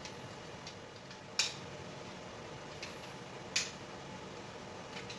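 A few sharp clicks from handling a plastic power socket and its terminals while the wires are fitted, two of them louder, about two seconds apart.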